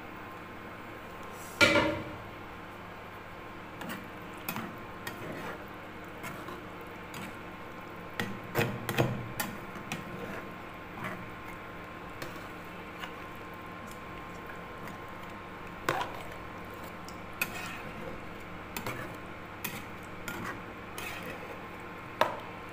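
Metal spatula knocking and scraping against a pan while a chicken and potato curry is stirred, in irregular clinks, the loudest about two seconds in and a cluster of them midway. A steady hum runs underneath.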